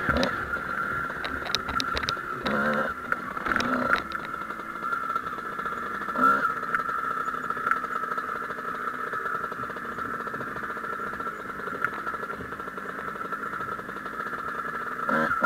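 Two-stroke Kawasaki KX dirt bike engine running steadily, with short revs about two and a half, four and six seconds in and again near the end.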